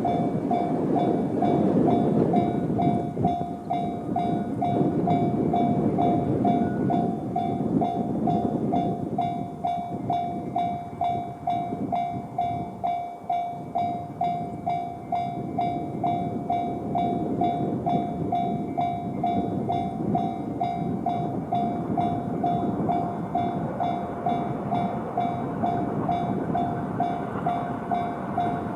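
Level-crossing alarm sounding the JR standard electronic bell tone, pulsing about twice a second, while a JR 211 series electric train runs over the crossing with loud wheel and rail rumble that eases briefly in the middle and builds again.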